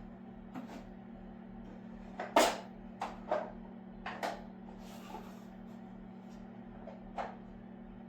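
Irregular knocks and clunks of things being handled, about eight of them, the loudest about two and a half seconds in, over a steady low hum.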